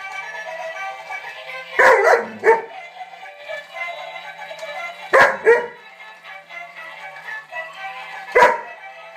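Alaskan Malamute barking at a toy: a pair of barks about two seconds in, another pair about five seconds in and a single bark near the end. Music plays steadily throughout.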